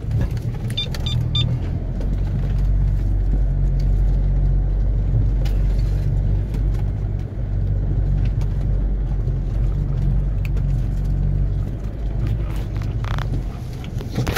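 Land Rover Freelander driving off-road, heard from inside the cabin as a steady low engine and drivetrain drone, with a few light clicks and rattles.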